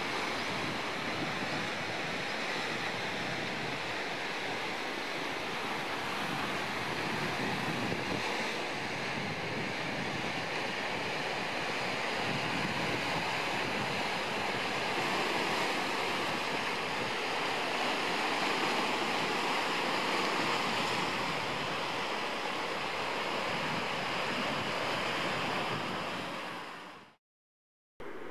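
Ocean surf: waves breaking and washing, with wind on the microphone. The sound fades out near the end.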